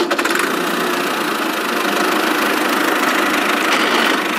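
Sound effect of a tractor engine idling, running steadily and evenly.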